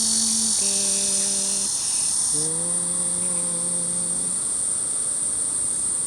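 Cicadas droning in chorus: a steady high-pitched buzz, with a second, lower buzzing layer that stops a little over two seconds in. Over it a woman hums a few long, held notes of a tune during the first four seconds.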